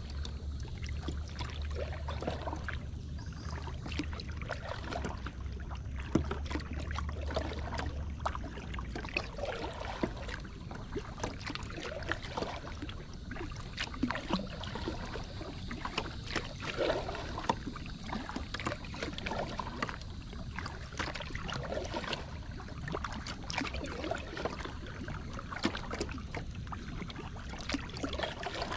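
Moken 12.5 kayak moving through calm water: irregular small splashes and drips of water around the hull, with a low steady rumble for the first eight seconds or so.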